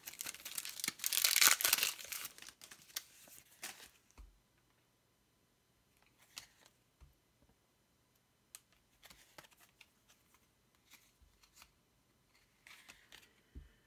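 A foil trading-card booster pack crinkling and tearing open for the first few seconds, loudest about a second or two in. After that, only scattered soft taps and slides as the cards are handled.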